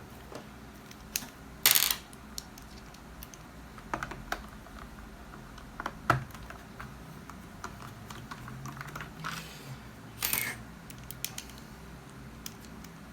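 Plastic parts of a Dyson vacuum's roller head being handled and fitted together by hand: scattered light clicks and taps, with two brief louder rustling bursts, one near the start and one near the end.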